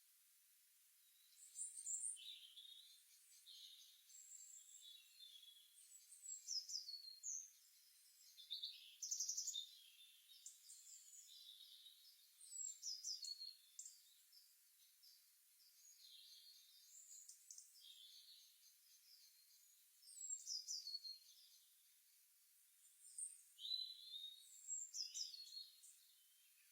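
Songbirds singing in short phrases of quick, high chirping notes, many of them falling in pitch, coming every few seconds over a faint steady hiss.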